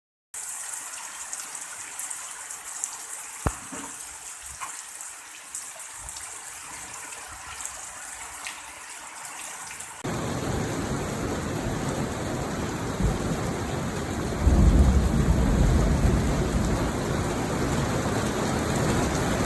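Rain falling as a steady hiss with scattered drop ticks. About halfway through it switches abruptly to heavier, louder pouring rain, and a few seconds later a deep rumble swells and fades under it.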